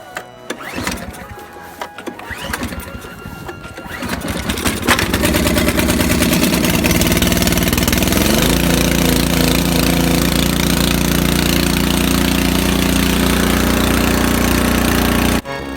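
Craftsman snowblower's Briggs & Stratton engine being started on the electric starter with the choke on. It catches about four seconds in and then runs loud and steady, its note shifting once about eight seconds in. The sound cuts off abruptly near the end.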